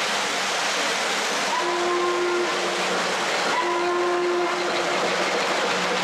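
Model steam locomotive's sound system blowing two whistle blasts about two seconds apart, each just under a second long, over a steady hiss of steam and running noise.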